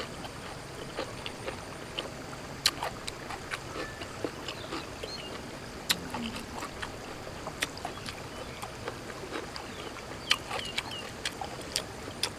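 Close-up chewing of raw beef: irregular wet clicks and smacks of the mouth over a faint steady outdoor background.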